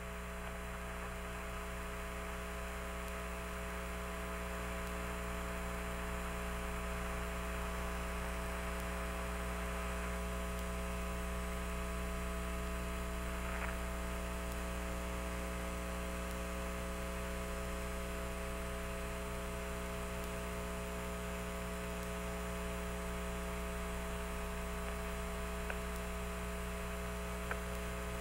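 Steady electrical hum with static hiss on an open Apollo air-to-ground radio loop between transmissions, with several fixed tones and a couple of faint clicks.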